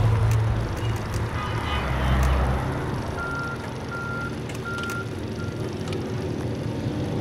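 A deep low rumble that stops about a third of the way in, then a vehicle's reversing alarm beeping four times at an even pace, over steady outdoor background noise.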